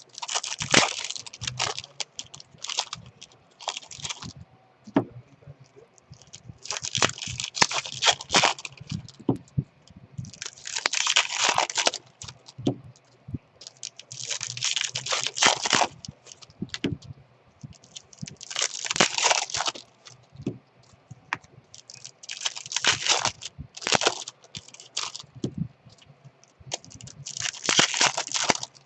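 Baseball card pack wrappers being torn open and crinkled by hand, in a series of crackling bursts every few seconds, with small clicks and handling noises between.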